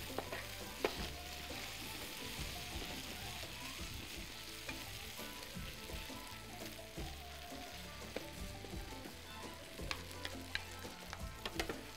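Ginger, garlic and chili paste sizzling steadily in hot oil in a frying pan as it is stirred with a spatula. The spatula clicks and scrapes against the pan about a second in and several times near the end.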